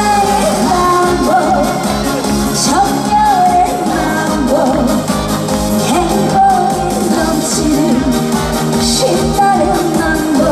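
Live trot performance: a woman singing over loud amplified band backing with a steady beat.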